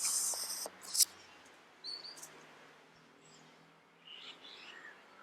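Scattered short bird chirps. Before them there is a rustling hiss for about a second, ending in a sharp click.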